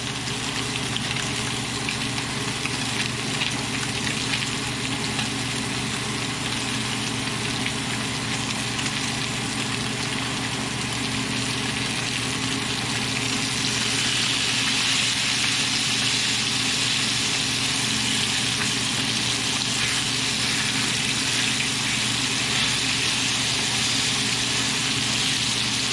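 Steelhead trout fillets frying in hot oil in a skillet, flesh side down: a steady sizzle that grows louder and brighter about halfway through, over a steady low hum.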